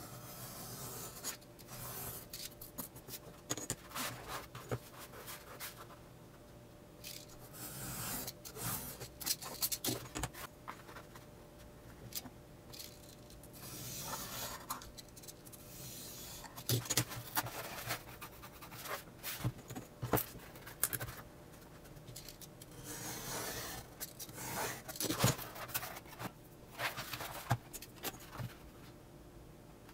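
Snap-off utility knife drawn along a steel ruler, slicing partway into paper-faced foamboard in several long scraping strokes. Sharp clicks and taps come between the strokes as the ruler and board are handled.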